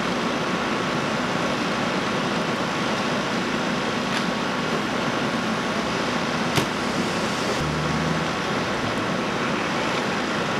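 Engines running with a steady drone, as at a vehicle-extrication scene where hydraulic rescue-tool pumps and fire apparatus stay running. A single sharp click comes a little past halfway, followed briefly by a deeper hum.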